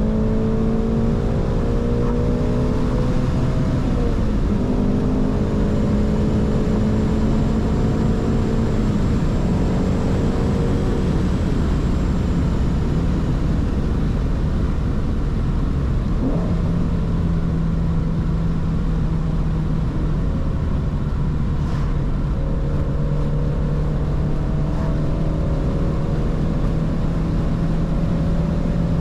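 Shelby GT350's 5.2-litre flat-plane-crank V8 cruising under light load, with road and tyre noise underneath. The engine note changes pitch a few times in the first ten seconds, then settles into a steady, lower drone from about halfway through.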